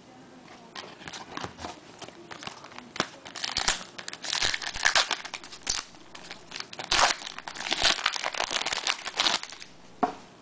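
Foil wrapper of a trading-card pack crinkling and tearing as the pack is opened, a dense run of irregular crackles.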